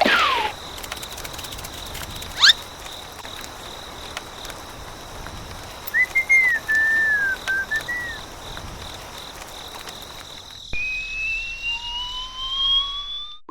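Comic whistle sound effects: a quick upward whistle sweep, then a short wavering whistled figure, then a slide whistle rising slowly for the last few seconds.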